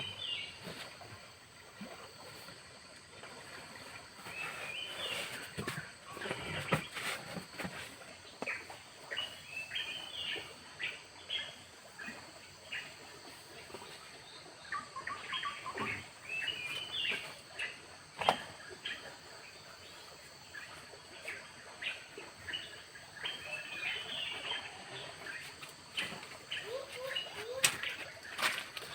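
Forest birds calling in many short, quick chirps over a steady background hiss, with a few sharp clicks or knocks scattered through.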